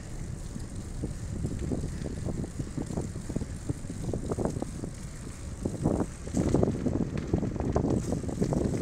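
A bicycle rolling over a dirt trail surface, with wind rumbling on the microphone and a steady rattle of small bumps that gets louder about six seconds in.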